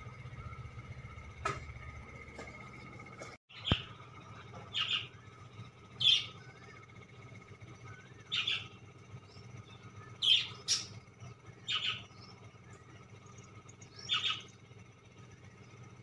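Tailorbird giving short, sharp chirping calls, repeated about every one to two seconds.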